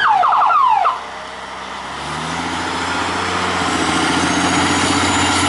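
An airport crash tender's siren giving a rising wail and then several quick yelps, cutting off about a second in. The Amdac Carmichael Cobra 2's engine then runs under load, growing gradually louder.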